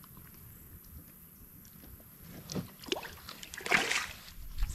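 A few splashes and sloshes in shallow river water as a channel catfish is let go at the edge, starting about halfway through, the loudest near the end.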